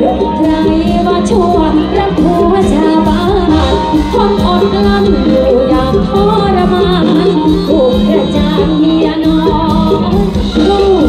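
A woman singing a luk thung (Thai country) song live into a microphone, with the band playing under her through the PA.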